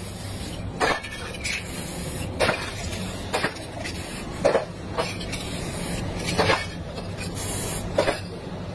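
Aerosol spray-paint can hissing in short bursts, about eight quick sprays spaced irregularly a second or so apart, over a steady low hum.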